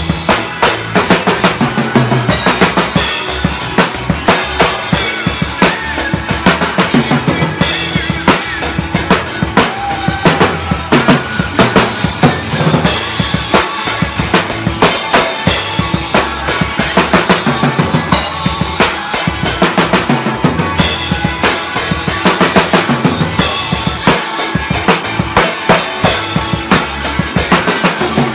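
Drum kit played in a steady groove: bass drum, snare and HCS cymbals struck at an even beat, about two to three hits a second.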